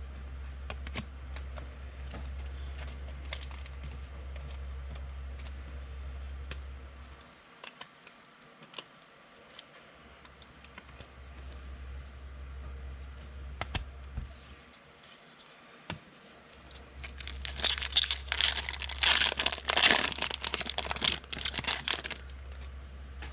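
A trading-card pack's wrapper being torn open and crinkled, loudest for several seconds near the end, after scattered light clicks of card handling. A steady low hum runs underneath and drops out twice.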